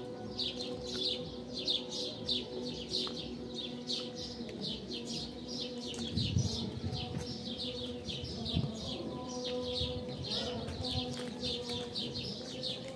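Small birds chirping, short high falling chirps repeated about two to three times a second without a break, over a steady low hum.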